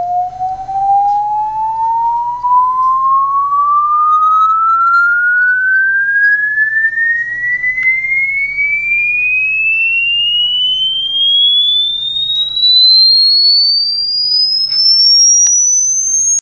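A pure test tone played through a small homemade loudspeaker, gliding steadily upward in pitch from a mid whistle to a high shrill tone, then cutting off suddenly. A low steady hum runs underneath, with a few faint clicks near the end.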